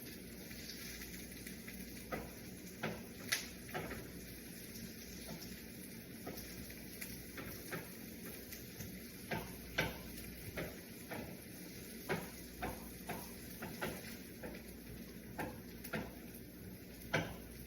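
Diced onion sizzling gently in olive oil and clarified butter in a frying pan, being sweated until clear rather than browned. Irregular clicks of a utensil stirring against the pan come through the steady sizzle.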